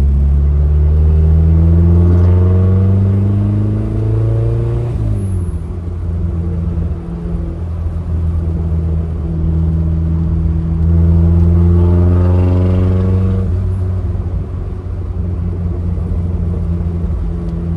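Turbocharged Mazda Miata four-cylinder engine pulling through a gear, its pitch rising for about five seconds before dropping away sharply, then running steadily before a second, shorter rise in pitch and drop about twelve seconds in.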